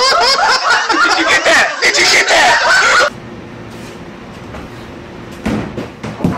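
Loud laughter and shrieking voices for about three seconds. Then an abrupt cut to the steady running hum inside a subway train car, with a couple of knocks near the end.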